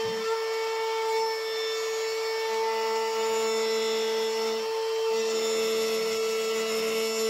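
Ryobi palm router running at speed with a 1/8-inch round-over bit, a steady high whine, while a walnut block is fed against the bit to round over its inside corner. A lower hum joins in about two and a half seconds in and again after five seconds.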